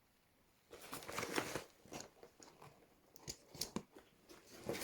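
Nylon fabric of a Maxpedition sling bag rustling and crunching as it is handled, starting about a second in, with a few sharp clicks in between.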